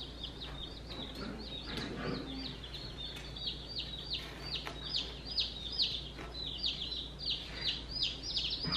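Day-old baby chicks peeping continuously: a stream of short, high cheeps that slide downward in pitch, several a second.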